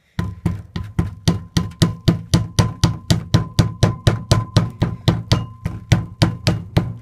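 Hammer rapidly tapping a rubber seal into a greased VW T3 Vanagon wheel-bearing hub: an even run of dull knocks, about three or four a second, because the seal won't seat by hand pressure alone.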